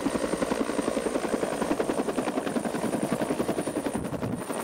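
Helicopter in flight, its rotor blades beating in a rapid, even rhythm, with a thin steady high whine above.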